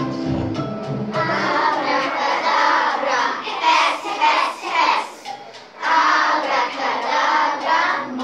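A group of children singing a song together over instrumental accompaniment. The accompaniment plays alone for about the first second before the voices come in, and the singing breaks off briefly near the middle.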